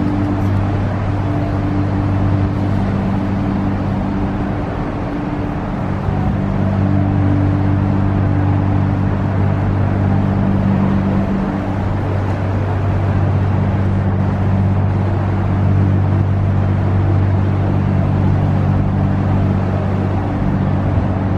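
Steady low droning hum of large ship machinery: several held low tones under an even rushing noise, with a slight dip in level about five seconds in and again near the middle.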